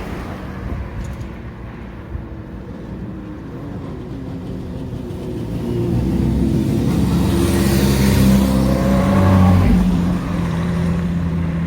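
Road traffic at an intersection: a motor vehicle's engine comes up close from about halfway through, with its tyre noise loudest a few seconds before the end.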